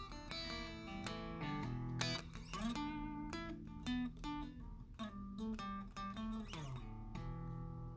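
Soft closing music on guitar: a run of plucked notes and strums, a note sliding down near the end, then a held ringing chord.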